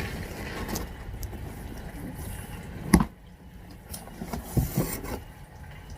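A delivery parcel being handled before unboxing: a sharp knock about three seconds in, then a few softer knocks.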